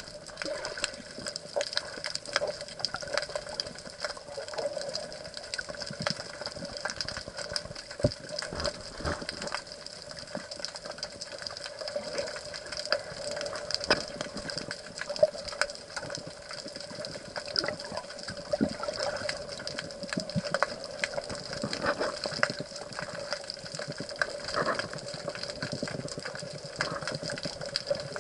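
Underwater sound picked up by a submerged camera: a steady muffled rush of moving water with many small clicks and crackles scattered through it, over a constant hum.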